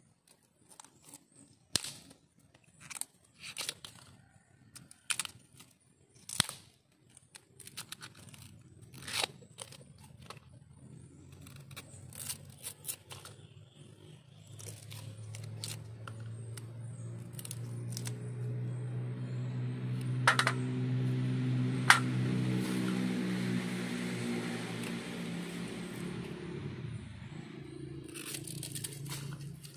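Kitchen knife cutting and splitting fresh bamboo shoots: a run of crisp snaps, cracks and tearing as the stalks are slit and the sheaths pulled away. About halfway through, an engine hum rises, peaks and fades, passing by while the cutting goes on.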